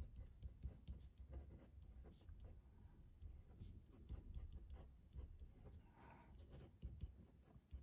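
Felt-tip pen writing block capitals on paper: faint, short scratching strokes, one after another.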